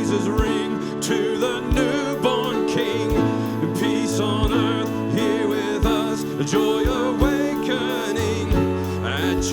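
Live worship band playing a Christmas worship song between sung lines, with sustained keys and bass, a melody line and a steady drum beat.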